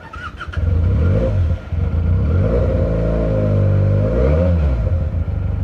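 Benelli TNT300's 300 cc parallel-twin engine accelerating: its pitch climbs, drops and climbs again with the gear changes, then settles to a steady run.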